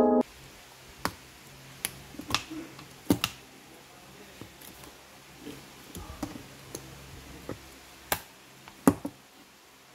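A ring-bound planner being handled: paper pages rustle and its metal binder rings click sharply several times, twice close together near the end.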